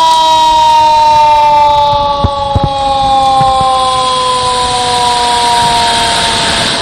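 Dam flood-warning siren sounding one long tone that slowly falls in pitch, warning the settlements downstream that the spillway gates are being opened. Under it is the steady rush of water pouring through the dam's open spillway gates.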